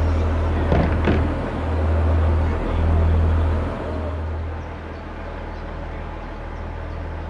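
A class 142 Pacer diesel railbus running on the line, a steady low engine drone heard from on board. Two sharp knocks come about a second in, and the engine note drops and quietens about four seconds in.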